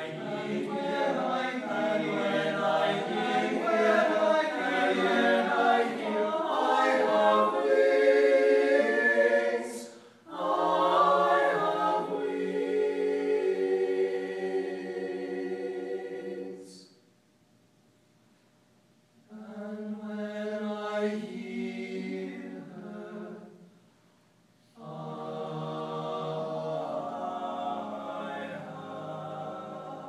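Men's a cappella group singing in close harmony, without instruments. The phrases are separated by two short silent pauses in the second half.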